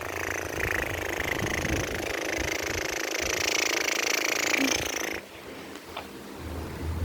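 A child imitating a helicopter with his mouth: a rattling, whirring mouth noise held for about five seconds that stops abruptly.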